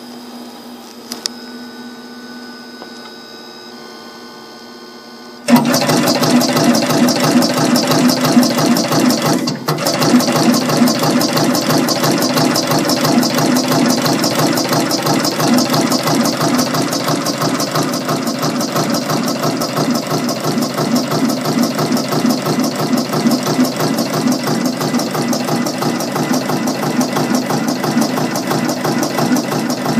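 A Decor two-color automatic rhinestone machine at a low hum, then starting about five seconds in and running steadily: a loud, fast, even mechanical chatter as it picks and places hotfix rhinestones along the design, with a brief dip just before ten seconds.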